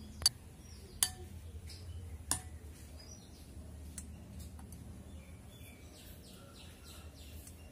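A metal spoon clinks sharply against a glass bowl three times in the first two and a half seconds while jack leaves are turned in thick gram-flour batter. Birds chirp in the background with short falling calls throughout.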